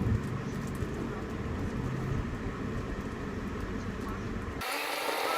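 Low, steady road and engine rumble of a car heard from inside while driving. About four and a half seconds in it cuts off suddenly, giving way to a thinner background with a steady hum.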